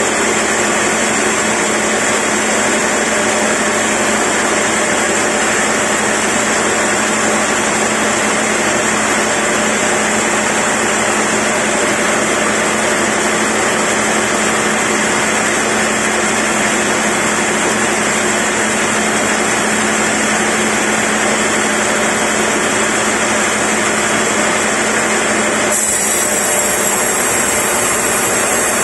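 Band sawmill cutting through a large log: the saw's motor and running blade make a loud, steady noise with a constant hum, mixed with the rasp of the blade in the wood.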